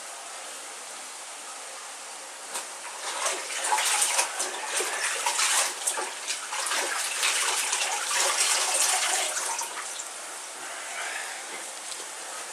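Tap running into a bathroom washbasin, with irregular splashing as a man washes his face over it from about two and a half seconds in; the splashing stops a couple of seconds before the end while the water runs on steadily.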